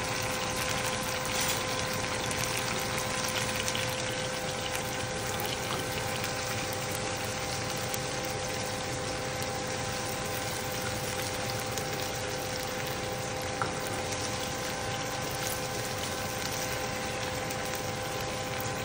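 Canned mackerel with onion, tomato and peppers sizzling in oil in a frying pan, an even steady sizzle, with a steady hum underneath.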